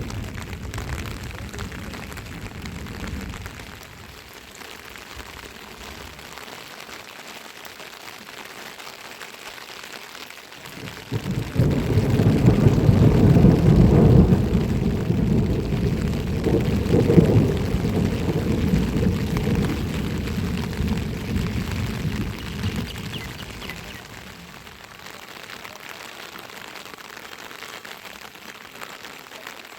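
Steady rain falling, with a long low rumble of thunder that starts about a third of the way in, lasts some twelve seconds, then dies away.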